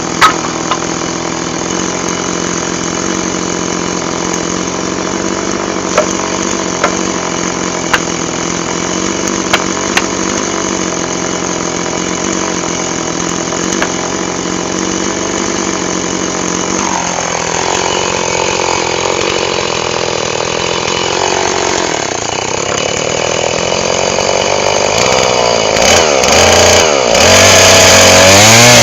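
Two-stroke chainsaw engine running steadily at idle, with a few sharp clicks in the first ten seconds. Near the end it is revved, rising in pitch and loudness and swinging quickly up and down in revs.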